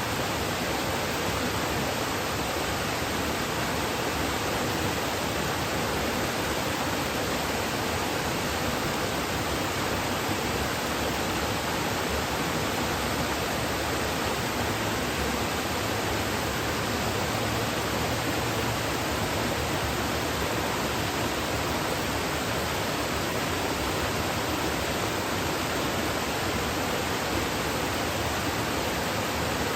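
Waterfall: water falling and splashing in a steady, even rush that does not change.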